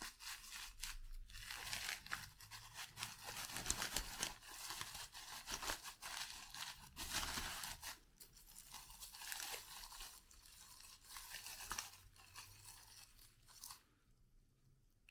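Packaging being torn open and crinkled by hand while unwrapping: a dense run of tearing, crackling and rustling that stops near the end.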